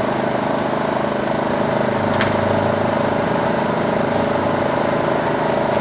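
Craftsman 3000i inverter generator running steadily under the load of a window air conditioner, with one short sharp click about two seconds in.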